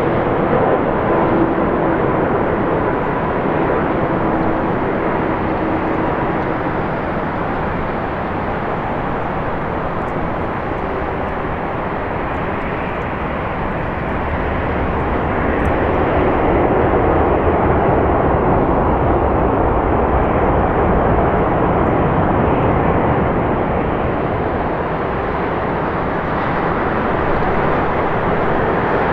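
Jet engine noise from an Airbus A330-200's Rolls-Royce Trent 700 engines: a steady rush with a faint engine whine over the first several seconds, swelling louder about halfway through.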